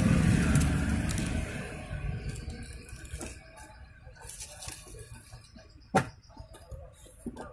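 Rustling and light clicks from the handling of a cardboard parcel and its plastic-wrapped contents, with one sharp click about six seconds in. A low rumble fades out over the first two seconds.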